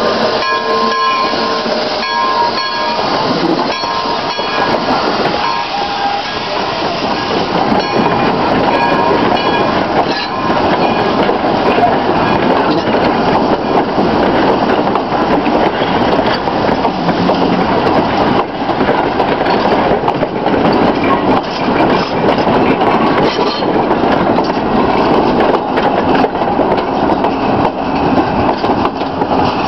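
East Broad Top narrow-gauge steam train, locomotive No. 15 and its passenger cars, rolling past at close range, wheels clicking over the rail joints with a steady rumble. Intermittent high tones sound during the first several seconds.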